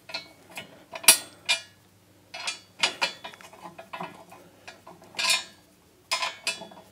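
Metal clinks and scrapes of bolts being worked into the holes of a Bobcat skid steer's metal battery tray: a string of sharp clinks, the sharpest about a second in. The bolts won't pass because the holes are coated with Corroseal rust converter.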